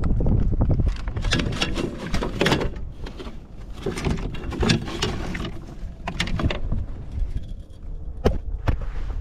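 Irregular clicks, knocks and rattles of gear being handled on board a fishing kayak, over a steady low rumble of wind on the microphone.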